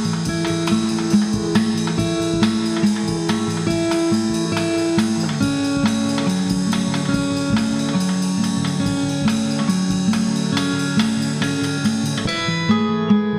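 Instrumental background music led by guitar, plucked in an even, steady pulse; about twelve seconds in, the bright upper layer of the music drops away.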